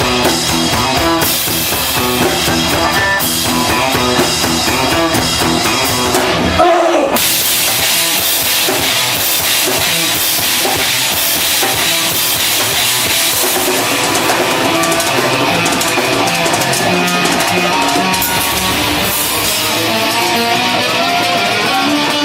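Live rock band playing an instrumental passage on drum kit and guitars, with a brief break about seven seconds in.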